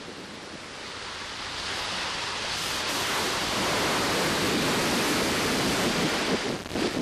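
Rushing hiss of white water breaking and sluicing along a sailboat's hull as it drives through heavy seas, building over the first couple of seconds, then holding steady and dipping briefly near the end.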